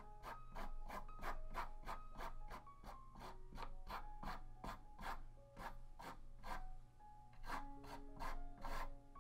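Paintbrush rubbing paint across a wooden panel in quick strokes, about three a second, with a short pause about two thirds of the way in. Gentle background music plays underneath.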